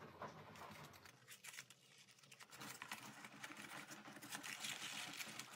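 Faint rustling and crinkling of a folded paper origami form being tilted in the hands, with light scattered ticks of a ping pong ball rolling across its paper pleats. The rustling grows a little louder about halfway through.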